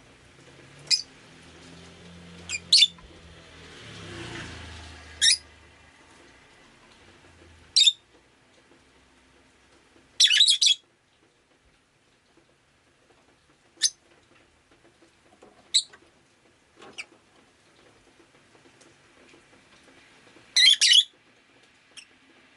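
Rosy-faced lovebird giving short, sharp chirps, singly and in quick bursts, about a dozen in all with pauses between. Early on, a low engine hum from a passing vehicle swells and fades under the calls.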